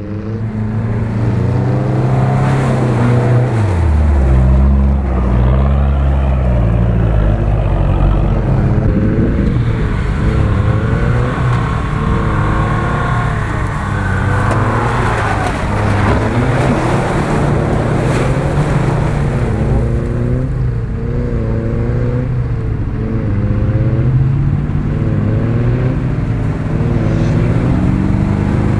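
Off-road SUV engines running under load, revving up and easing off again and again as they drive through a muddy grass field.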